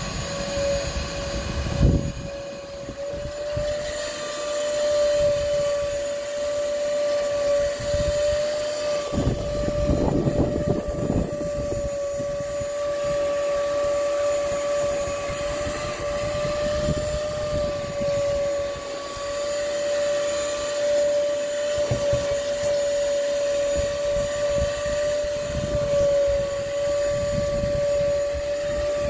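Wet/dry canister shop vacuum running steadily with a constant whine while its hose nozzle is worked over a mattress. A few low bumps and rumbles come through, loudest about two seconds in and again around ten seconds in.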